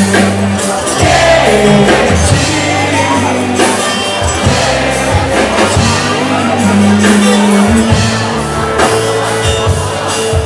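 Live band playing an instrumental passage between sung lines, with a steady bass line and drums, and shouts from the audience.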